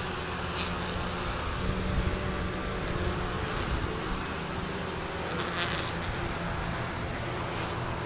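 Road traffic: a car passing with a steady low engine and tyre hum, with a few faint high ticks.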